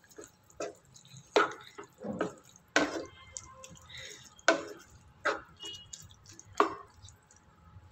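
Wooden spatula stirring a watery potato curry in a non-stick pan: wet sloshing scrapes and knocks against the pan, about one a second.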